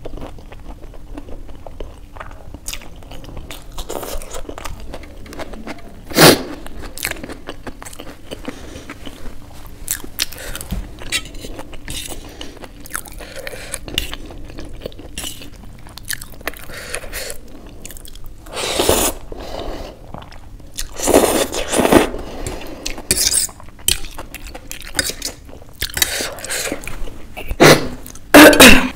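Close-up eating sounds: crunching on raw onion and chewing Maggi noodles, with a metal fork clinking and scraping on a steel plate. There are many short clicks throughout, one sharp loud sound about six seconds in, and bursts of louder crunching and clatter in the second half and near the end.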